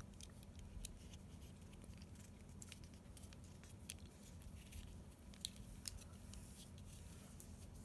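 Faint, scattered small metal clicks of a lock pick and tension wrench working the pins inside a Master Lock 141D padlock during an attempt at single-pin picking.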